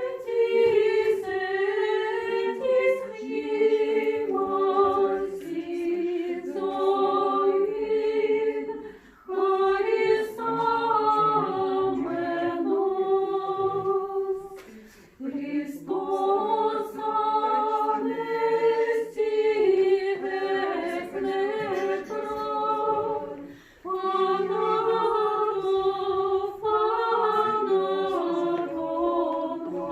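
Russian Orthodox church choir singing a liturgical chant unaccompanied, in phrases broken by short pauses about 9, 15 and 24 seconds in.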